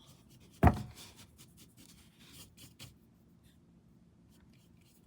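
A paintbrush scratches faintly in short strokes across a small canvas, laying on a gray wash. A single knock comes just over half a second in.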